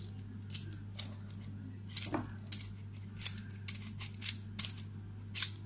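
Metal multipurpose vegetable peeler scraping strips of hard rind off a pumpkin: short, sharp rasping strokes at an irregular pace of roughly two a second. A steady low hum runs underneath.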